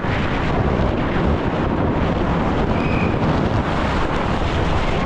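Wind buffeting the microphone at speed over the rumble of a downhill mountain bike on a dry, rocky dirt trail.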